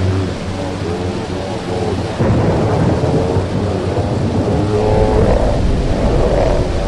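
Recorded thunderstorm effect from a death metal album's intro track: rain with thunder rumbling, swelling louder about two seconds in, under a wavering pitched layer.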